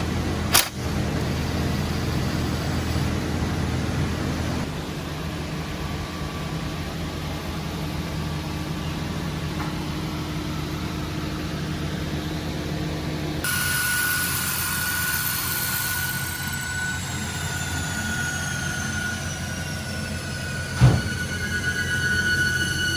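Steady workshop background hum with a sharp click about half a second in and a knock near the end, while work goes on under the engine. The hum changes suddenly about halfway through.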